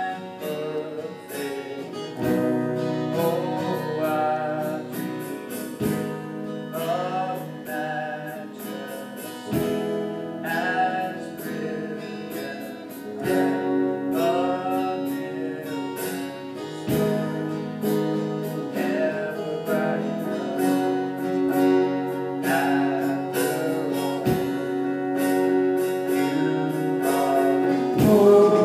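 Small worship band rehearsing a song: guitars strumming chords under a sung melody, getting louder near the end.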